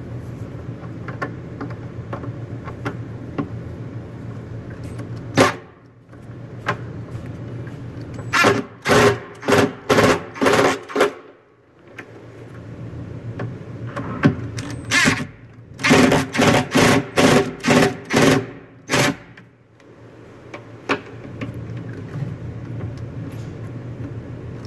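Power drill driving screws into a metal cabinet hinge, its trigger pulsed in short bursts. There are two runs of quick pulses, about six near the middle and about eight a little later, over a steady low hum.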